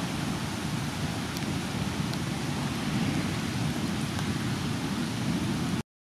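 Steady rain and wind noise, with a few faint drop-like ticks, that cuts off abruptly near the end.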